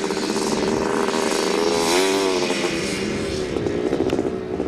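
Motocross bike engine running as it is ridden over a grass course, its pitch rising and falling with the throttle, with a rise about two seconds in.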